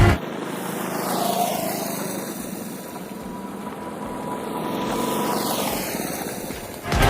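A motor vehicle running past, a steady engine and road noise that swells about a second in and again around five seconds.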